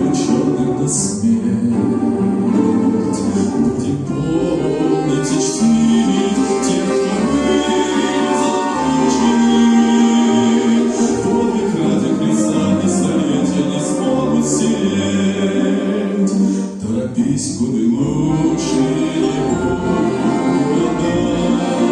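A choir singing a Christian hymn with an orchestra accompanying, with a short break between phrases about three-quarters of the way through.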